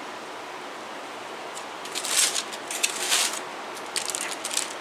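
Aluminium foil crinkling in a few short bursts as hands pull apart grilled chicken on it, over a steady background hiss.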